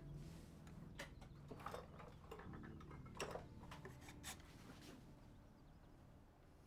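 Faint, scattered clicks and knocks, a few seconds apart, over a quiet low background hum.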